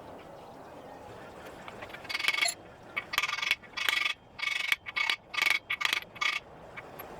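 A hammer striking a socket to drive core plugs into a 360 Magnum engine block: a rapid, uneven run of ringing metal strikes starting about two seconds in and stopping a little after six seconds.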